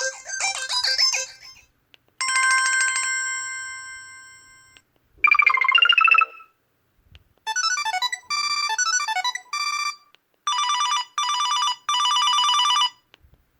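A Samsung Gusto 3 phone plays its built-in alert tones one after another, with short gaps between them. First the end of a melodic jingle, then a chime that slowly fades, a short warbling tone, a run of quick notes, and three bursts of rapid beeping near the end.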